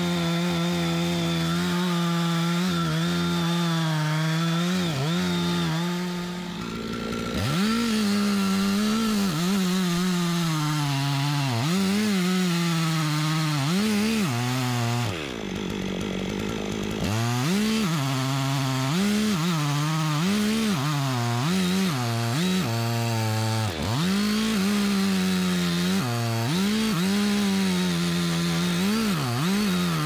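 STIHL MS 460 two-stroke chainsaw cutting into the base of a jackfruit tree trunk. It runs at steady high revs for the first few seconds. Then the engine speed rises and dips about once a second as the bar is worked through the cut, with a brief lower-speed stretch around the middle.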